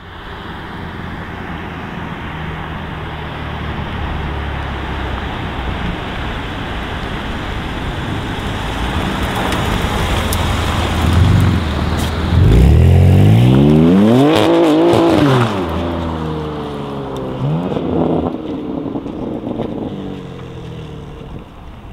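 Exhaust of a BMW M3 G80's twin-turbo inline-six through an R44 performance exhaust, growing louder as the car approaches and passes. About twelve seconds in it revs up hard under acceleration, loudest for about three seconds before dropping away. A shorter burst of revs follows near eighteen seconds.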